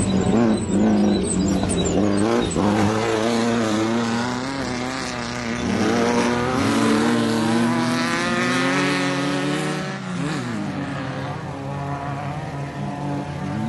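Off-road race vehicle engines revving as they pass, the pitch rising and falling with the throttle. The engine note climbs in the middle and drops away about ten seconds in.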